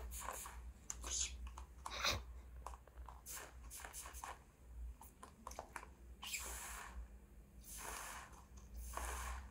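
Trigger spray bottle misting water onto a cockatiel bathing in a shallow tub: three short hissing squirts in the second half, after scattered light clicks and patters.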